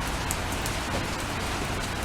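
Steady rain, with scattered individual drops ticking on a surface.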